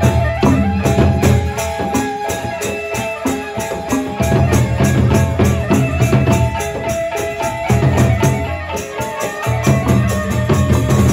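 Lombok gendang beleq gamelan playing: large double-headed barrel drums and gongs under a fast, steady clash of hand cymbals, with pitched kettle-gong notes carrying the melody. The deep drum band drops out briefly twice, about two seconds in and again about eight seconds in.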